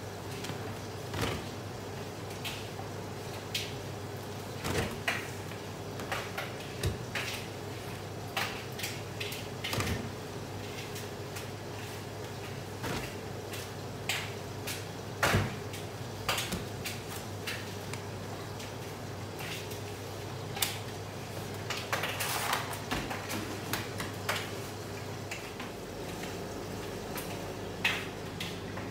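Laundry machine drum turning with a steady motor hum, and irregular clicks and knocks as the load tumbles inside it.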